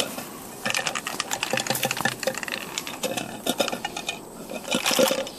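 Loose key rattling and knocking inside an orange plastic-pipe monkey puzzle geocache as it is shaken hard: a fast run of clicks with a short pause about four seconds in. The cache is shaken to work the key down into a funnel inside so it drops out.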